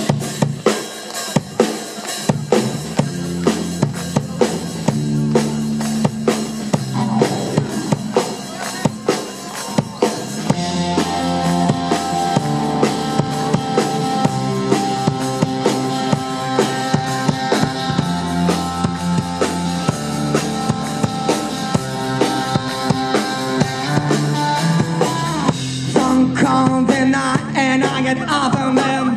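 A live band playing an instrumental passage with a drum kit to the fore: kick, snare and rimshot hits over a bass line. Sustained chord notes come in about ten seconds in.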